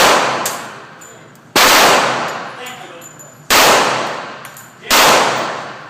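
Four pistol shots from a Remington 1911 R1 in .45 ACP, about one every one and a half to two seconds. Each sharp report is followed by a long echoing fade.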